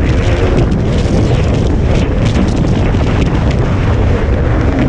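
Off-road motorcycle engine running hard at speed, buried in heavy wind buffeting on the microphone: a loud, steady din.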